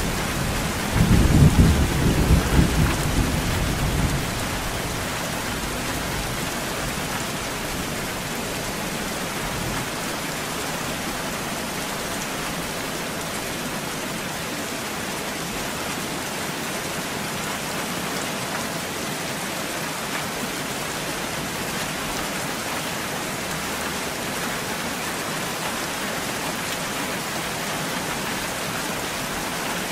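Steady rain falling, with a burst of thunder rumbling for about three seconds shortly after the start, then rain alone.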